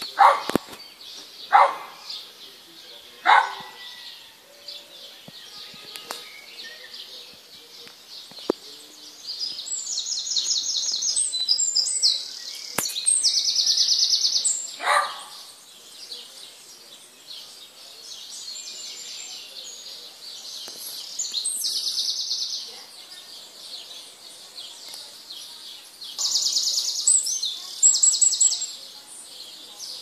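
Songbirds singing: high, rapid trilled phrases of a second or two each, repeated several times, with a few shorter, lower calls in the first half.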